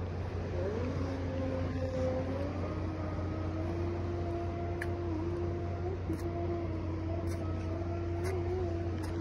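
A boat's engine running steadily with a low hum, its pitch stepping up a little about half a second in and again about two and a half seconds in.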